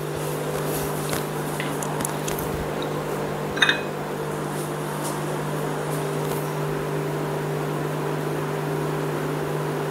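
A steady machine hum, with a few faint ticks and one short ringing clink about three and a half seconds in.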